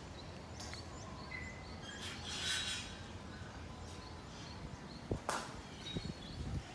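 Outdoor ambience with a steady background hiss and faint chirps of small birds. There is a brief rustling swish about two seconds in, then a sharp click and a few soft low thumps a little after five seconds.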